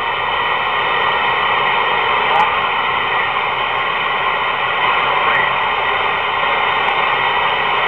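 Steady static hiss from a CB radio between transmissions, with no voice coming through.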